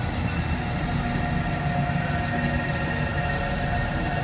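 Transport for Wales diesel multiple unit moving slowly past the platform: a steady rumble with a faint humming tone from its engine and drive.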